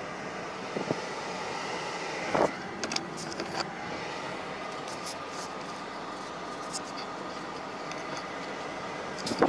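MAN TGS truck's diesel engine running steadily, heard from inside the cab during a slow test drive after a clutch kit replacement, with a few sharp clicks and knocks, the loudest about two and a half seconds in.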